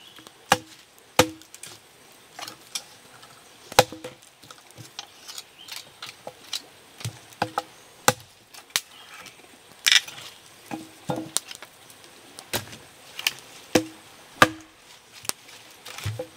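Large knife blade chopping wood sticks against a log: a long run of sharp, irregularly spaced chops, many with a brief ring after the strike.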